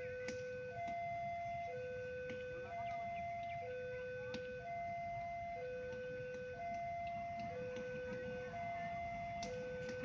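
Railway level-crossing warning alarm sounding faintly, an electronic two-tone signal that alternates between a lower and a higher tone about once a second, with a few light clicks.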